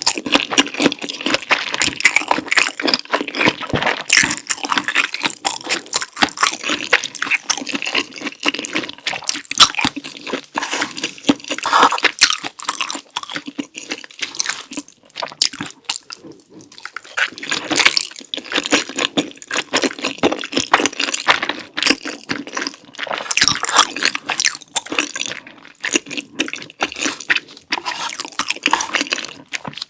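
Close-miked eating: wet, sticky chewing of creamy spicy instant noodles and sausage with cheese sauce, a steady run of small smacking clicks. There is a short lull about halfway through.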